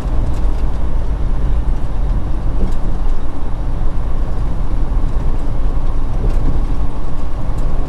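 Cab of a semi truck with a Detroit DD15 diesel engine cruising at highway speed: a steady, deep engine drone mixed with road and wind noise.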